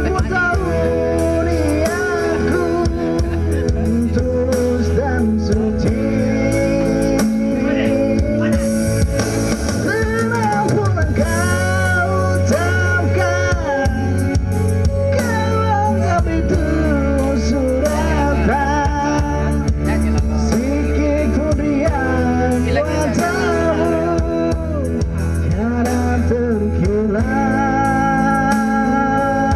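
Music: a song with a voice singing over a steady band backing with guitar.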